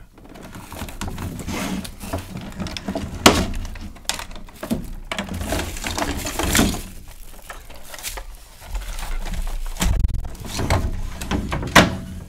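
Handling of the DX9 Capone figure's large plastic trailer on clear plastic wrapping: crinkling and rustling of the plastic packaging with sharp plastic clicks and knocks, the loudest about three seconds in and again near the end.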